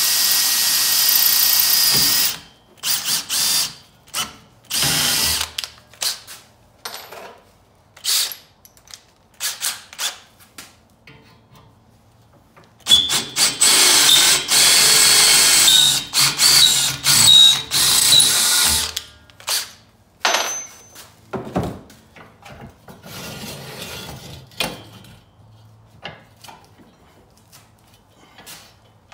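Makita 18V cordless drill boring through hard high-carbon steel bed-frame angle iron clamped in a vise. It runs steadily for about two seconds, then in short stop-start bursts, then in a longer run of about six seconds midway, then more short bursts that give way to lighter handling clatter near the end.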